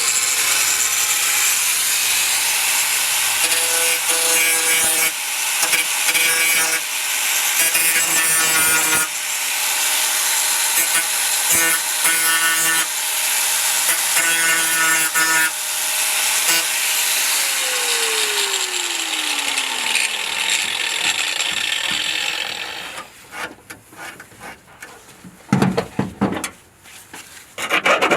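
Angle grinder cleaning rusty sheet-metal truck bed, a loud hissing scrape over a steady motor whine. About seventeen seconds in it is switched off and the whine falls in pitch as the disc spins down, then a few scrapes and knocks follow.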